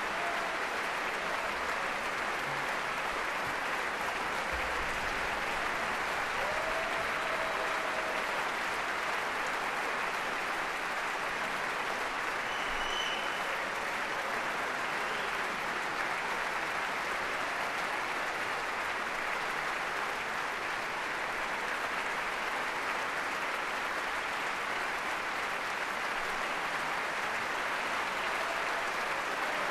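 Large concert-hall audience applauding steadily after an orchestral performance: a dense, even wash of many hands clapping.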